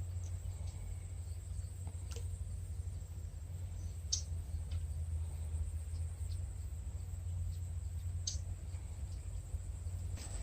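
Outdoor ambience: a steady low rumble with a few brief, high-pitched chirps every couple of seconds.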